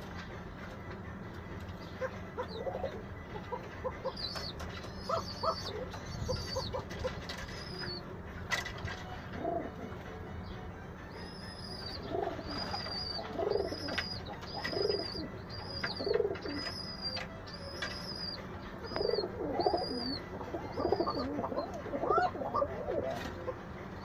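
Domestic pigeons cooing in low, wavering calls, with a thin high chirp repeated about once a second through much of the stretch and a few sharp knocks.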